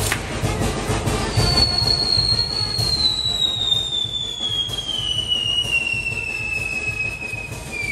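Toritos' fireworks spraying and crackling, with a loud whistling firework that starts about a second in and falls slowly and steadily in pitch as it burns.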